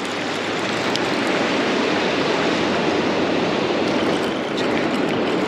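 Steady rushing of ocean surf breaking and washing up the beach, with a few faint clicks.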